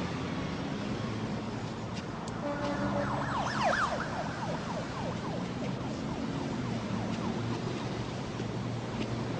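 Film soundtrack of a city street: steady traffic-like ambience under a low held hum, with a flurry of quick sliding tones about three to four seconds in.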